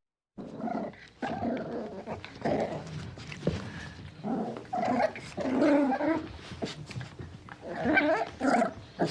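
A puppy growling and giving short barks in play, in an uneven string of bursts with short pauses, loudest about two-thirds of the way through.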